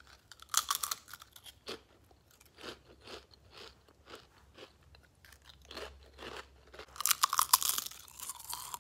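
Potato chips being bitten and chewed: a crisp crunch as the first chip is bitten, softer repeated chewing crunches, then a louder, longer crunch as a second chip is bitten near the end.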